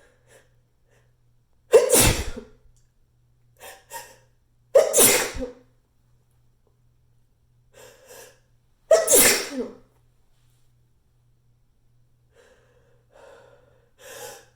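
A person sneezing three times, loud and echoey in a small tiled bathroom. Each sneeze is preceded by short, catching in-breaths, and another build-up of breaths starts near the end.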